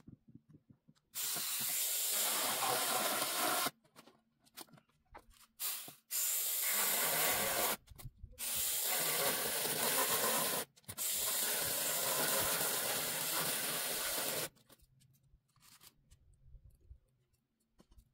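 A steady spraying hiss, switched on and off in several stretches of a few seconds each, starting and stopping abruptly.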